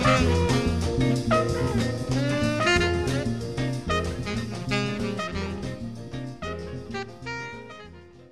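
Instrumental jazz background music with a steady beat, fading out gradually to near silence at the end.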